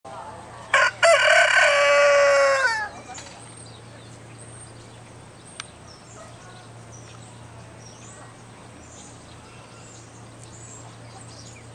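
A rooster crowing once: a short opening note, then one loud, drawn-out cock-a-doodle-doo that drops in pitch at its end, lasting about two seconds.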